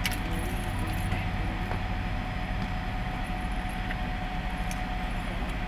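Steady low mechanical rumble with a faint constant hum through it, and a sharp click right at the start.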